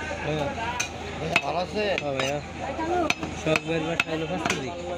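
A large broad-bladed butcher's knife chopping beef on a wooden stump block: several sharp knocks at an uneven pace, with voices in the background.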